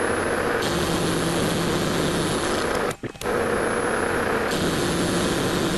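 1972 Weiler Matador SV lathe turning while boring the inside diameter of a steel ring, fast-forwarded 16 times, which gives a dense, steady mechanical whirr. The sound drops out briefly about three seconds in.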